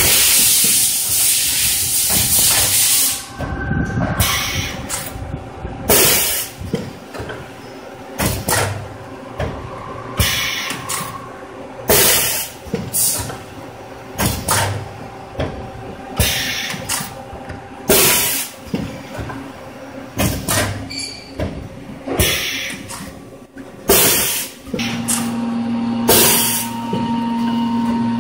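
Automatic conveyor tray-sealing machine cycling: a sharp pneumatic hiss of released air about every two seconds as the sealing head presses lidding film onto plastic food trays, with mechanical clatter from the conveyor between strokes. A steady hum joins near the end.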